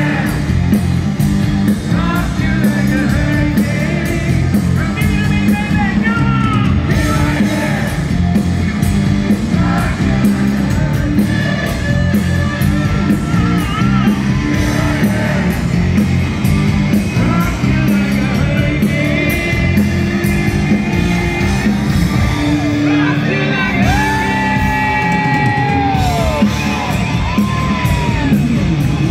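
Hard rock band playing live: distorted electric guitars, bass guitar and drums with voices singing and yelling, heard from the crowd in a large hall.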